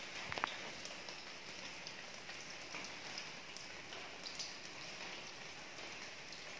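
Steady rain: an even hiss with scattered single drops ticking close by, one sharper drop about half a second in.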